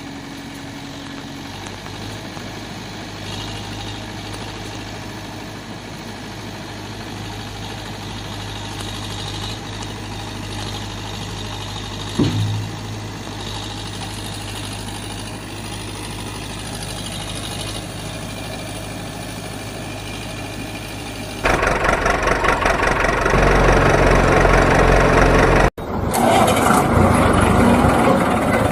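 Dubbed vehicle engine sound effect, not the sound of the plastic toys: a steady engine idle with a brief rising squeak about halfway. About three-quarters of the way through a much louder engine sound starts suddenly, broken a few seconds later by a brief cut to silence.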